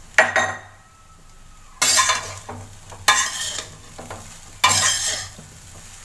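Flat metal spatula scraping and tossing egg fried rice in a large aluminium kadai. There are four strokes about a second and a half apart, each a short scrape of metal on metal through the rice; the first has the sharpest onset.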